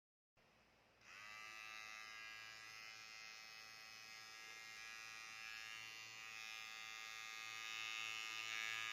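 Electric hair trimmer, freshly serviced, switched on about a second in: its motor spins up quickly, then buzzes steadily and grows gradually louder.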